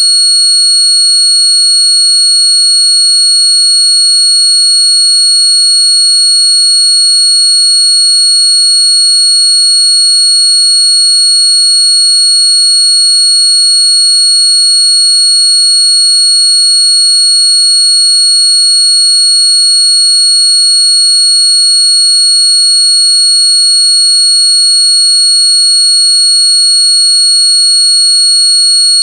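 Loud, steady, high-pitched electronic tone with several higher tones stacked above it, held without any change. It is a synthetic sound track made to be played against noisy neighbours.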